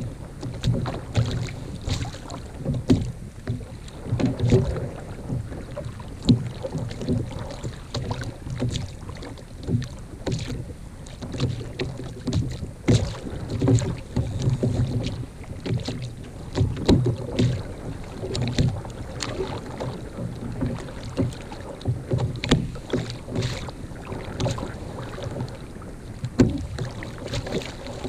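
Small waves lapping and slapping irregularly against the hull of a sit-on-top kayak, with wind buffeting the microphone.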